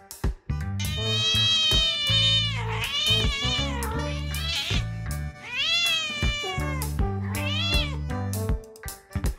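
A domestic cat meowing four times in long, drawn-out meows that rise and fall in pitch, the last one the shortest, over background music with a steady beat.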